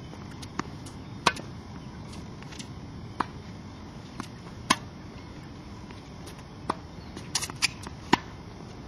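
Tennis balls popping off racket strings and bouncing on a hard court during a rally: sharp single knocks at uneven intervals, with a quick cluster near the end.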